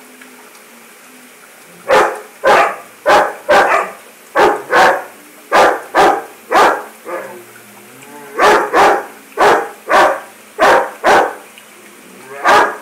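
Dog barking in quick runs of sharp barks, about two a second, with short pauses between runs and a brief whine in the middle. Before the barking starts, a faint steady rush of aquarium water.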